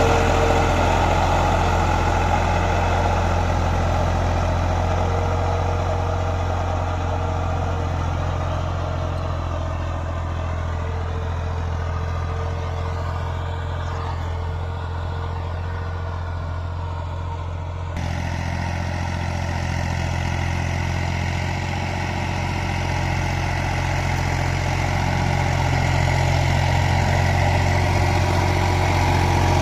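Fiat 480 tractor's three-cylinder diesel engine running steadily under load while its blade pushes soil. It is fainter in the middle and grows louder near the end as the tractor comes close.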